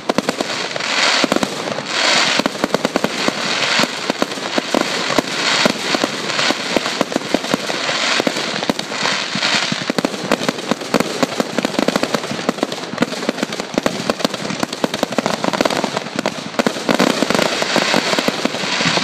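Fireworks going off in a continuous rapid barrage of crackles and pops, with brief hissing surges as comets rise and bursts spread.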